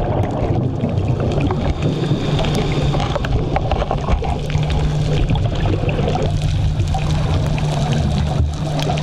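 Underwater sound on a reef dive: a steady low hum under a dense crackle of scattered clicks and water noise.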